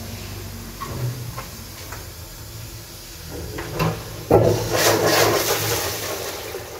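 Squat toilet flushing from its wall-mounted plastic cistern: a few light clicks first, then a little over four seconds in water gushes suddenly and loudly into the pan, easing off toward the end.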